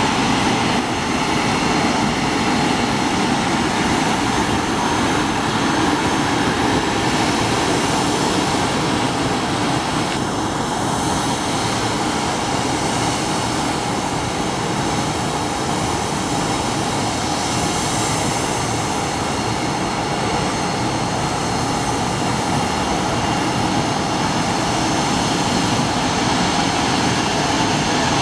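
Jet engines of a regional airliner taxiing at low power, a steady rushing hum with a faint high whine on top.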